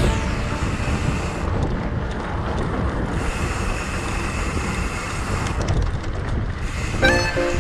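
Wind rushing over the camera microphone while riding a trail, a steady noisy roar with no clear engine note. Background music comes back in near the end.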